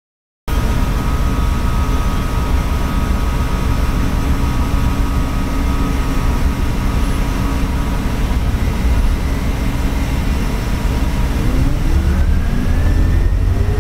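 Interior of a New Flyer C40-LF natural-gas city bus underway: a steady low engine and road rumble with faint constant whining tones. Near the end a whine rises in pitch as the drivetrain speeds up.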